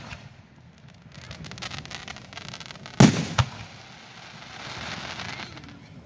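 Aerial firework shells: a stretch of fine crackling about a second in, then a loud bang about three seconds in, followed closely by a second, smaller bang, and a fainter hiss afterwards.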